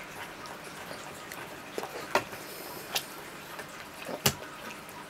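A baby's sticky hands patting and slapping the plastic high-chair tray: a few sharp taps, the loudest about four seconds in, over faint room hiss.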